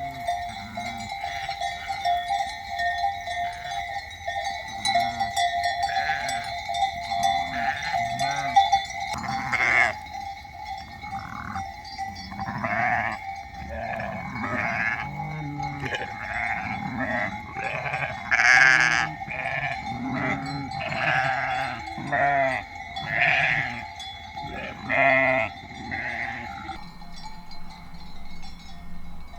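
A flock of sheep and lambs bleating, many short calls overlapping, over the steady ringing of sheep bells. The bleating dies away shortly before the end while the bells ring on.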